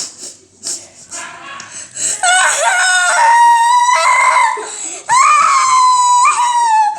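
A child's voice crying loudly in two long, drawn-out wails, the first starting about two seconds in.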